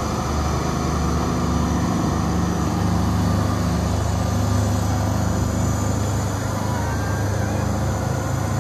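Rosenbauer Panther 6×6 airport crash tender's diesel engine running steadily with a low hum as the heavy truck drives.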